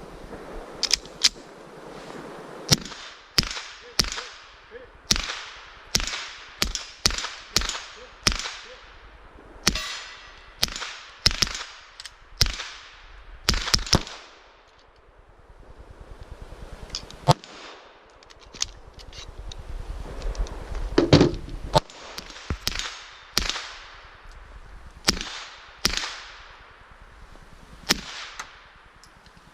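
Suppressed 9mm pistol shots fired in an irregular string, roughly one a second, each a sharp crack with a short echo, with a pause of about three seconds midway.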